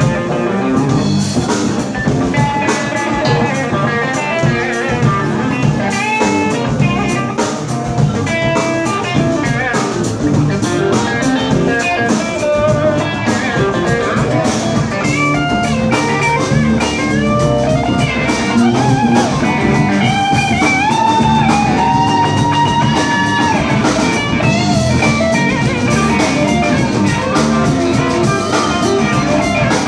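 Live band playing blues-rock: electric guitars over bass guitar and drum kit, with a melodic lead line of bending notes.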